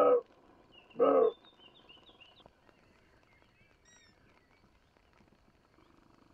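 Roe deer barking twice, two short hoarse calls about a second apart. After them come faint bird chirps.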